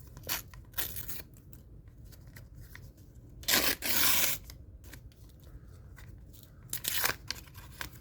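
A sticker pack's wrapper being handled and torn open: a few light crinkles, then a loud tear lasting about a second, and a shorter rip near the end.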